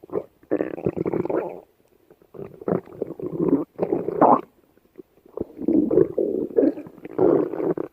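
A person's stomach growling and gurgling in three long, uneven bouts with short quiet breaks between them.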